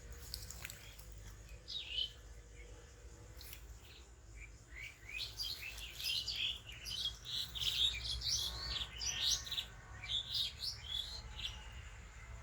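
Small birds chirping: one short call about two seconds in, then a quick run of twittering chirps through the middle and latter part, over a steady low rumble.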